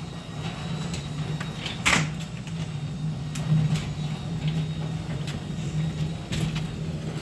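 Garage door opener running: a steady motor hum while the door travels, with a few sharp clicks and knocks, the loudest about two seconds in, and the hum stops near the end.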